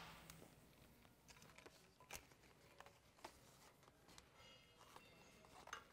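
Near silence, with faint, scattered clicks and taps from a wiring harness being handled against a sprayer's steel boom frame.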